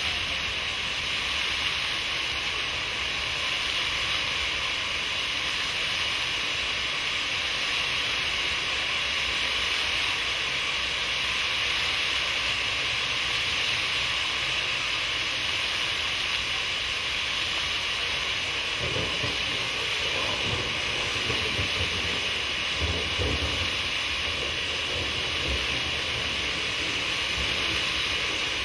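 Water jets of a pavement fountain spraying up from nozzles in the paving and splashing back onto the wet stones: a steady hiss of spray. Some low rumbles come through about two-thirds of the way in.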